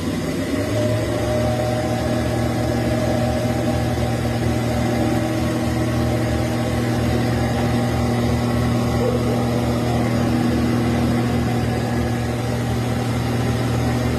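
Industrial gas burner running, a steady low rumble with a faint pulsing throb and a constant hum over it.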